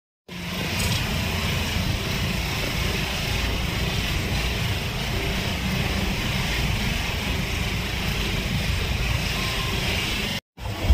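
Heavy rain falling on a car's roof and windshield, heard inside the moving car's cabin over a steady low road and engine rumble. The sound cuts out for a moment near the end.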